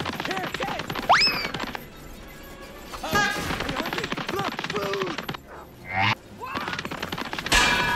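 Chase music with added cartoon sound effects: a quick rising whistle about a second in, another rising zip that cuts off sharply near six seconds, and a loud crash near the end.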